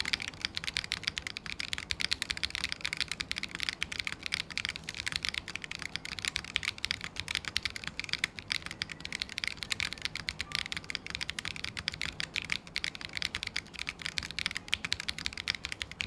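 Continuous rapid typing on a Qwertykeys QK80 mechanical keyboard. It is built with a POM plate and case foam, stock Akko CS Wine White tactile switches and PBT cherry-profile keycaps, giving a dense run of keystroke clacks. With the case foam fitted, the metallic ping from the case is toned down.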